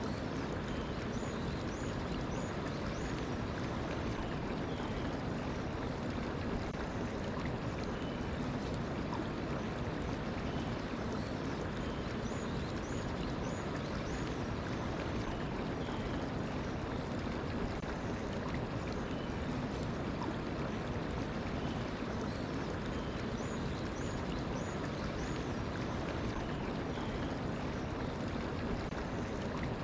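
Mountain stream flowing steadily over rocks. A small bird sings a quick run of four or five short high notes, repeated three times about ten seconds apart.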